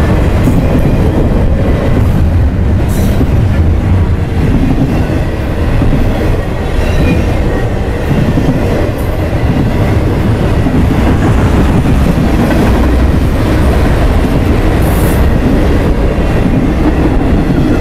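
Intermodal freight train's double-stack container cars and trailer cars rolling past, steel wheels on rail making a loud, steady rumble and clatter, with two brief high-pitched flares about 3 and 15 seconds in.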